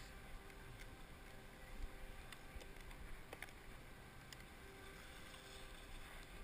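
Very faint outdoor ambience: a low rumble with a few small scattered clicks.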